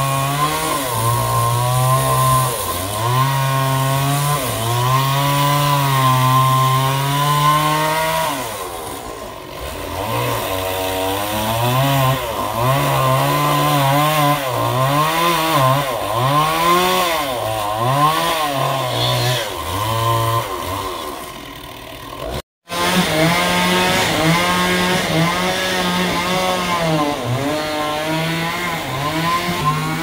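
Sawmill saw cutting through a trembesi (rain tree) log, the machine's pitch rising and falling as the load on the cut changes. The sound breaks off for a moment about three-quarters through, then carries on.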